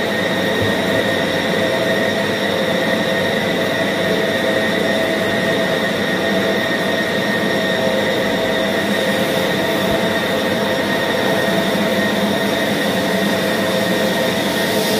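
Electric meat band saw running steadily, its motor and blade giving a constant hum with a steady whine over it as it cuts through pork.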